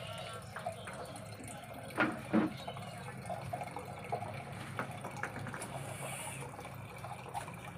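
A thin stream of water running from the plastic spigot of a water container into a terracotta pot as it fills. Two brief clunks come about two seconds in.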